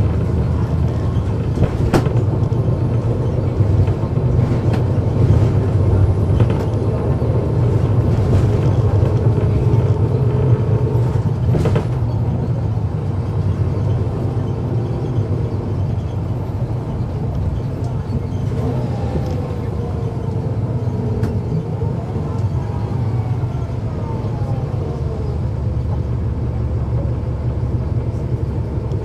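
Cummins ISL9 diesel engine of a 2009 NABI 40-SFW transit bus, heard on board while under way: a steady low rumble with a couple of sharp knocks, and a whine falling in pitch about two-thirds of the way through.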